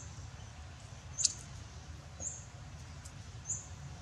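Faint, short high-pitched animal chirps repeating about once a second, over a steady low rumble.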